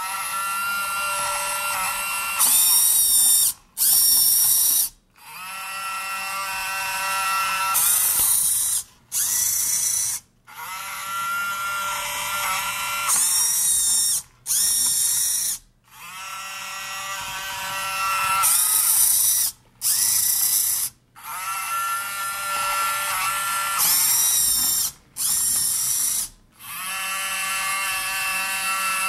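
Actuonix linear actuator and rotary hobby servo inside a prop blaster whining as they cycle, about every five seconds: a steady motor whine of two to three seconds, then two short, higher whines of about a second each, with brief stops between.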